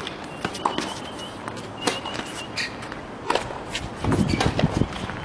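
Tennis ball struck by rackets and bouncing on court: sharp pops about every second and a half, with a few lighter knocks between them. Shoe squeaks come twice in the first half.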